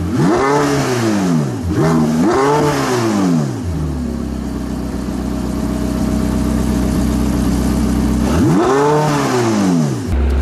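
Porsche 918 Spyder's V8 engine revved in two quick throttle blips, each rising and falling in pitch. It then idles steadily for about five seconds before a third blip near the end.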